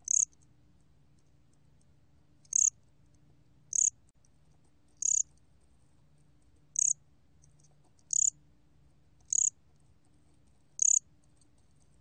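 곰귀뚜라미 cricket (Korean 'bear cricket') chirping at 23 °C: eight short, high-pitched chirps, each well under half a second, spaced one to one and a half seconds apart at a slightly uneven pace.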